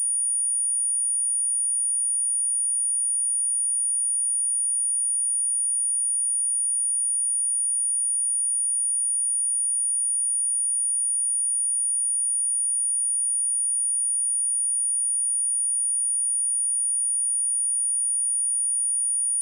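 A pure 9512 Hz sine-wave test tone, high-pitched and perfectly steady, used to test speakers and shake dust and water out of them.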